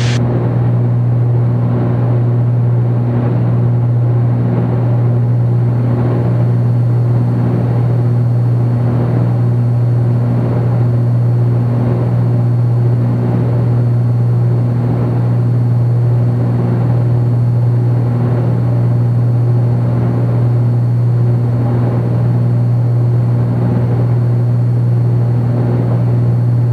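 Cockpit drone of a Cessna 310Q's twin Continental six-cylinder engines and propellers at cruise power, about 2350 RPM with the throttles wide open. The drone is steady and loud, with a slow, regular waver.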